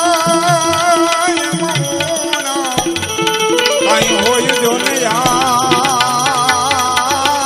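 Gujarati devotional folk song: a man sings long, wavering held notes over a steady drone, with tabla strokes beneath.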